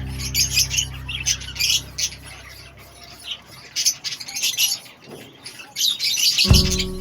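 Budgerigars chirping and chattering in short, rapid calls. Background music dies away over the first few seconds and starts up again near the end.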